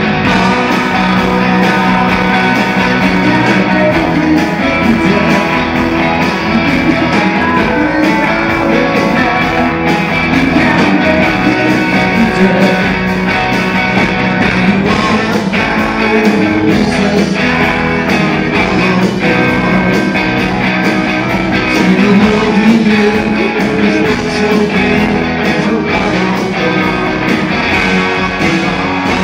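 Live rock band playing loudly, with strummed electric guitars carrying the music.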